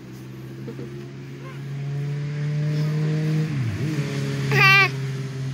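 An engine running steadily, getting louder and briefly dipping in pitch and recovering a little past halfway. Near the end a short, high, wavering squeal cuts across it and is the loudest sound.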